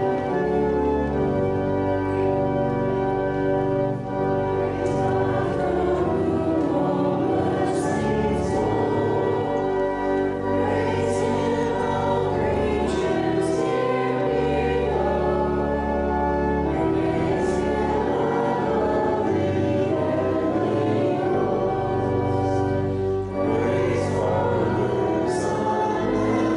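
Church organ playing offertory music: slow, sustained chords that change every few seconds.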